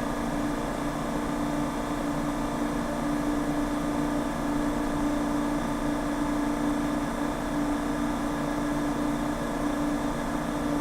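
A steady mechanical hum with one low drone tone over an even hiss, unchanging throughout.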